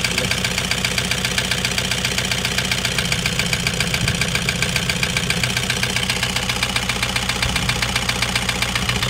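Toyota HiAce's 2KD-FTV 2.5-litre four-cylinder turbo-diesel running at a steady idle with a loud, rapid, even knock, very noisy ("sobrang ingay") and likened to a motorboat. The engine is freshly overhauled and its injectors test as working, so the cause of the knock is not yet known.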